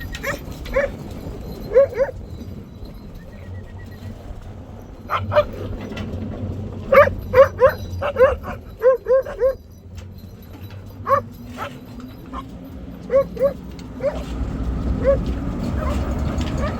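Dog barking repeatedly in short, high yips, with a quick run of them about seven seconds in.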